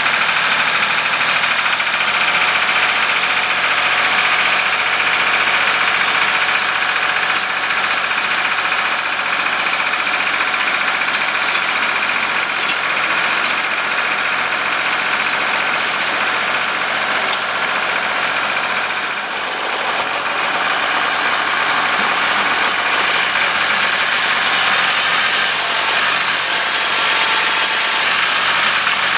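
Tractor engine running steadily, with a brief dip in level about nineteen seconds in.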